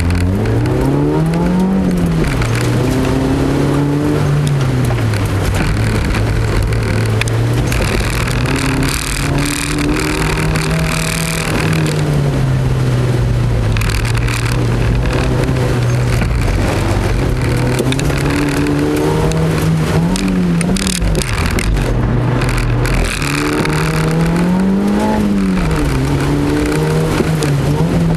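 Honda Fit GD3's four-cylinder engine, heard from inside the cabin while driven hard through a gymkhana course. It revs up and drops back over and over between accelerating and braking, with tyres squealing at times.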